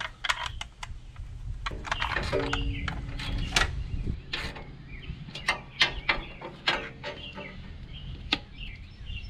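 Sharp clicks and metal taps as a plastic junction box is fitted and bolted with washers to a steel truck-frame cross member, with a cordless drill running in two short whirs, about two seconds in and again near seven seconds.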